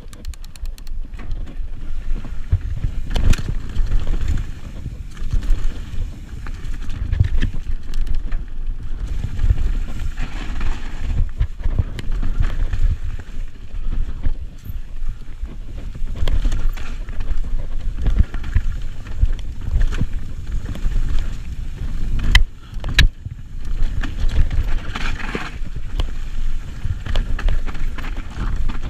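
Mountain bike descending a rocky forest trail at speed: a heavy rumble of wind buffeting the microphone, with tyres rolling over dirt and rocks and the bike clattering over bumps, including one sharp knock past the middle.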